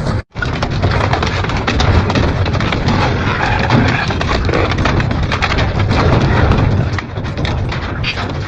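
Double-shaft industrial shredder tearing through metal: a loud, continuous din of irregular cracks, snaps and bangs, after a momentary gap just after the start.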